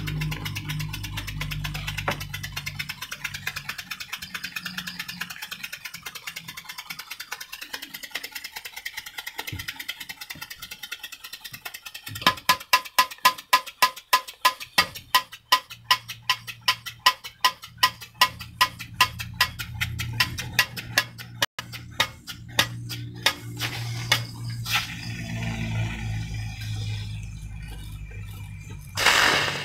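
Small homemade steam engine running, its steam exhaust puffing in rapid, even beats. About twelve seconds in the puffs become louder and slower, about four or five a second, and a short loud burst of noise comes near the end.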